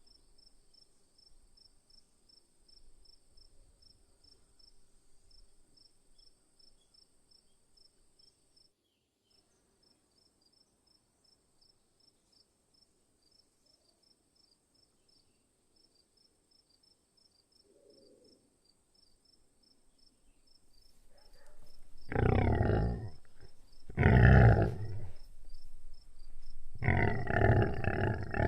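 Faint insects with a fast pulsing trill and a steady high hum, then near the end three loud, rough animal calls in quick succession.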